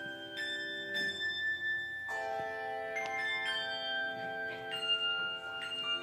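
Handbell choir ringing a piece: chords of handbells struck about once a second, each left to ring on and overlap the next.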